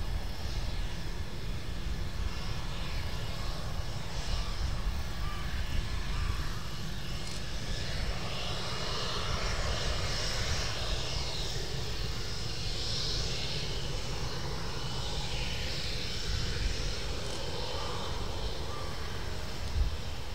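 Twin rear-mounted Rolls-Royce Tay turbofan engines of a Gulfstream IV (JASDF U-4) taxiing at low power: a steady jet whine and rush over a low rumble, swelling about eight seconds in and easing again near the end.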